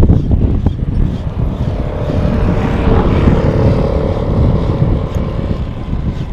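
Wind buffeting the microphone, with a steady hum from about two seconds in until past five seconds.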